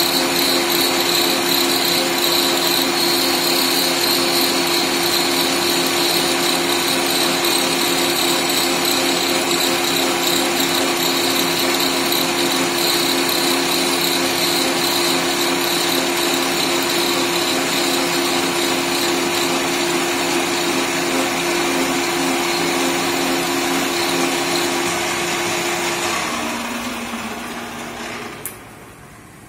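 Small CNC lathe cutting metal bar stock: a steady motor whine with held tones over the cutting noise. About three seconds before the end the pitch drops and the sound fades as the spindle winds down, with one sharp click near the end.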